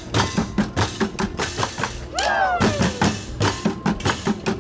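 Youth percussion ensemble beating a fast, steady rhythm on barbecue grills, cooking pots, utensils and plastic trash cans. A shouted cry that rises and then falls in pitch comes about two seconds in.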